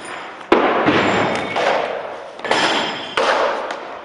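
Several sudden thuds of blows landing in a sparring bout with padded gear and training sticks: the first about half a second in, more at roughly one, two and a half and three seconds. Each is followed by a noisy tail that fades over about a second.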